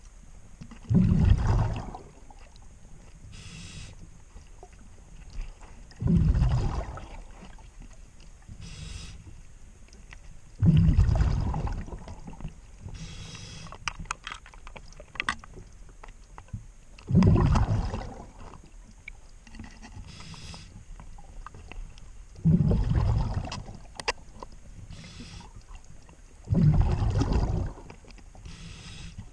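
Scuba diver breathing on a regulator underwater: six loud gushes of exhaled bubbles, about every five seconds, each followed by a fainter hiss of inhalation. A few sharp clicks come in the middle.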